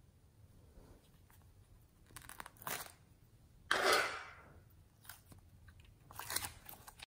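Clear plastic heart-shaped container of blue floam slime (foam beads and glitter) being squeezed in the fingers: crunchy crackling in several bursts, the loudest about four seconds in.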